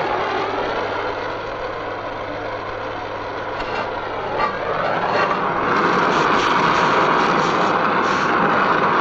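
Oxy-acetylene torch flame hissing steadily against a steel chassis rail, easing off a little midway and louder again over the last few seconds.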